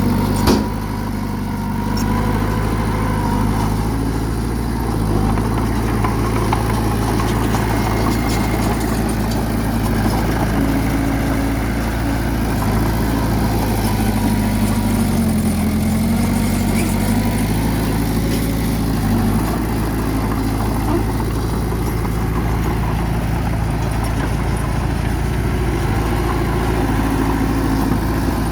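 Bulldozer's diesel engine running steadily under work, with one sharp knock about half a second in and a brief drop in engine speed around the middle.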